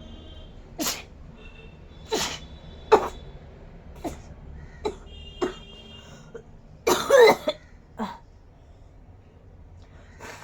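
A person coughing in short separate bursts, about seven of them. A longer, louder coughing fit comes about seven seconds in.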